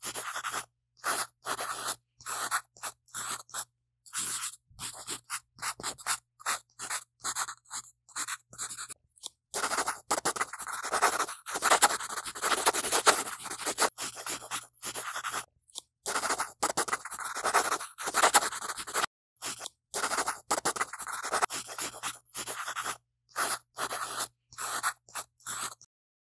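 Pencil scratching and shading on drawing paper, in many short bursts that cut in and out abruptly with silence between, and longer runs of steady scribbling around the middle.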